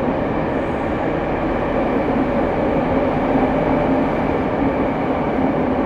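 Steady running noise of a Rinkai Line 70-000 series electric train, heard from inside the passenger car as it travels along the line.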